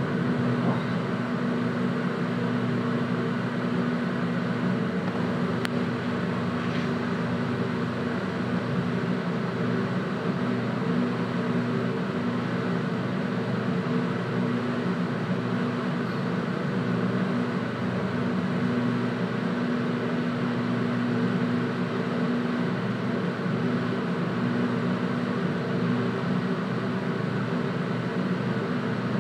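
Inside a stationary Hitachi Rail tram: the on-board equipment hums steadily, with several steady tones over an even background noise.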